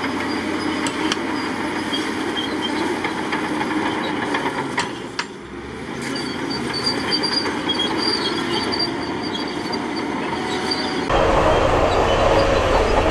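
Heavy earthmoving machinery working: a diesel engine running steadily, with scattered clanks and knocks. About two seconds before the end, the sound switches abruptly to a louder, deeper engine noise.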